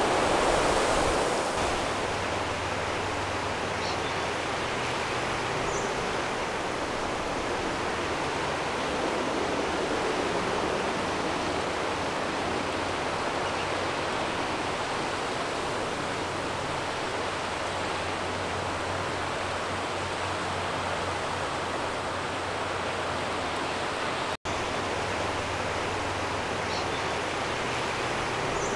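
Steady rush of flowing water, like a river pouring over a weir, with a faint low hum underneath and a brief dropout about 24 seconds in.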